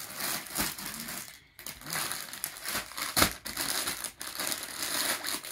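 Clear plastic packets of folded suit fabric crinkling and rustling as they are handled and laid down, with a short lull about a second and a half in and a sharp crackle about three seconds in.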